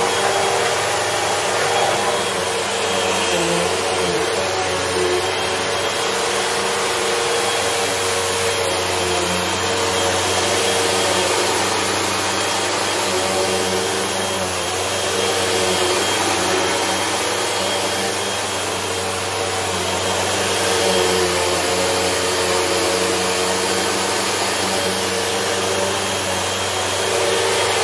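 Upright vacuum cleaner running steadily with a constant motor hum and whine, pushed back and forth over a woven runner rug, its level swelling and easing slightly with the strokes.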